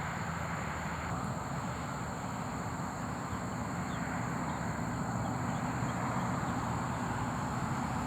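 Steady outdoor background: a low, even rumble with a thin, steady high-pitched drone above it and no distinct event.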